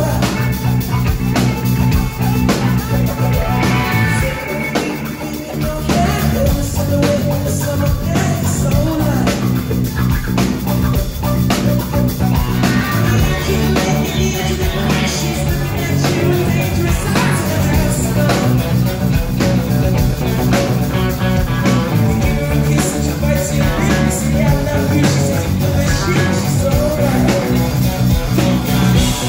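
Live rock band playing loud: electric guitars and drums with a male lead singer. The low end drops away briefly about four seconds in, then the full band comes back.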